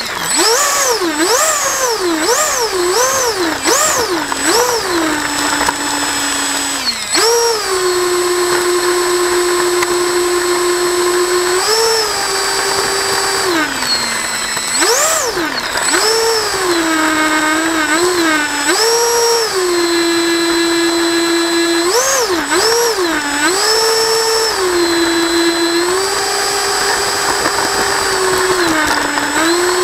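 Electric motor and propeller of an RC plane whining, the pitch rising and falling with the throttle. It is blipped up and down quickly for the first few seconds, then held at steady speeds with short dips and surges.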